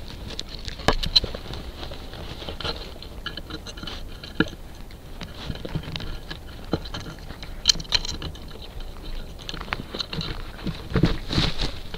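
Raccoon handling the trail camera up close: irregular clicks, taps and scrapes of claws and snout on the camera housing, thickening and growing louder near the end.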